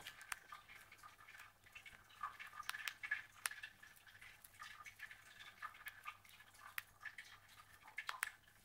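Faint, irregular clicking and ticking of a young cockatiel pecking at a millet spray and cracking the seeds in its beak.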